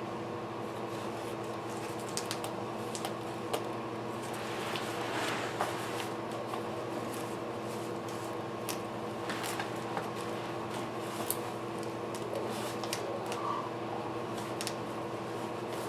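Scattered light clicks and rustles of parts being handled during assembly, over a steady mechanical hum.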